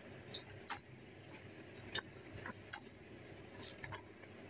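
A person chewing a mouthful of soft egg noodles close to the microphone: faint, short wet mouth clicks and smacks scattered irregularly.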